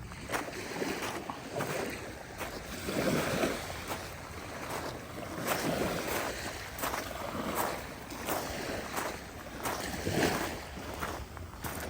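Small waves washing on the beach, in uneven swells every second or two.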